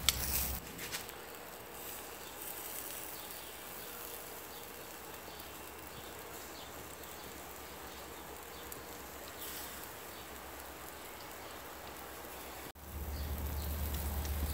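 Chicken wings sizzling faintly and steadily over a charcoal grill while they are basted with barbecue sauce. After a sudden break about 13 seconds in, a steady low rumble comes in under the sizzle.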